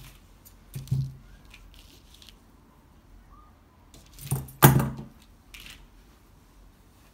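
Large metal fabric scissors being handled on a plastic-covered table: a small clink about a second in and a louder metallic clatter a little past the middle, with faint fabric handling between.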